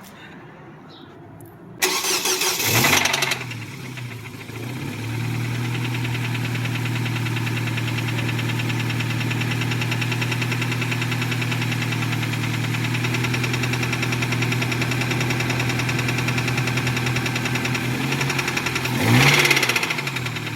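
A 2008 Nissan Versa's four-cylinder engine is cranked by the starter for about a second and a half, catches, and settles into a steady idle, with a brief rev near the end. It runs with a rapping knock, perhaps from the bottom end of the motor.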